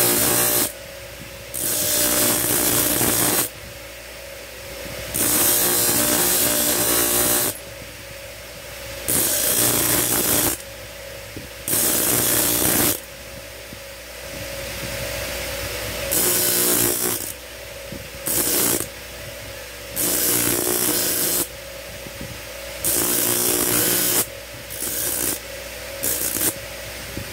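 Motor-driven grinding wheel running with a steady hum while a small steel blank is pressed against it in about a dozen short passes. Each pass makes a loud grinding noise lasting one to two seconds, as the rough blank is ground down to a semi-finished shape.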